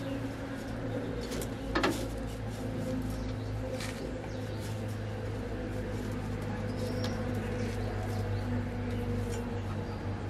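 Scattered light metallic clicks and taps from the blades of a tractor's rotary tiller being handled, the loudest a sharp knock with a brief ring about two seconds in, over a steady low hum.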